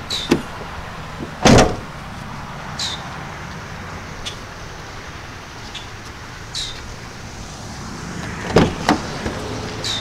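A 2018 Nissan Kicks's hatchback tailgate shut by hand with one loud slam about a second and a half in. Near the end, the front passenger door latch clicks and knocks two or three times as the door is pulled open.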